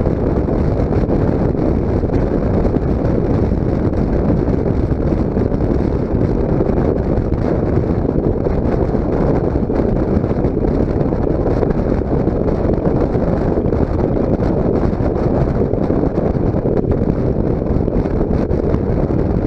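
Steady wind rush and buffeting on the microphone of a motorcycle's onboard camera at road speed, with the bike cruising in sixth gear.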